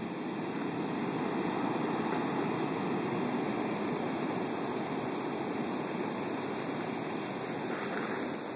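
Surf from large storm-surge waves breaking and washing up a beach: a steady rushing wash.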